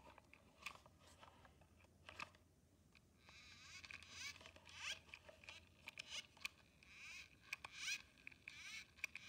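Faint scraping and rasping of a plastic bubble toy rubbed and dipped against a paper cup of bubble solution. A few soft clicks come first, then from about three seconds in a run of quick repeated scratchy strokes.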